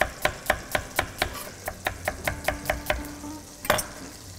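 Chef's knife slicing an onion on a wooden cutting board: steady strokes through the onion, each ending in a tap on the board, about four a second, stopping after about three seconds. A short clatter follows near the end.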